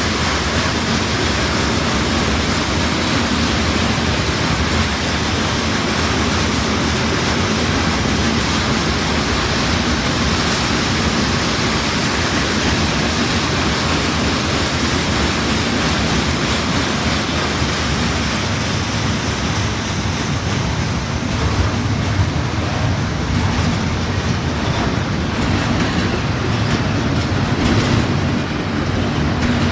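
Norfolk Southern freight train's cars rolling past, a loud, steady rumble of steel wheels on rail.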